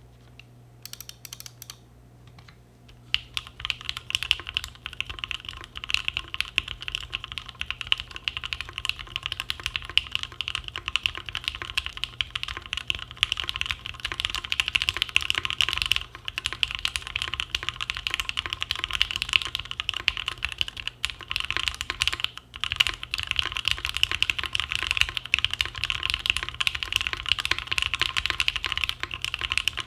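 Mechanical keyboard being typed on fast and continuously: a Mekanisk Tind gasket-mount 60% with lubed Gateron Ink switches on a carbon fiber plate and GMK keycaps, sounding deep and a bit hollow. A few isolated key clicks come first, and the steady typing starts about three seconds in, pausing briefly twice.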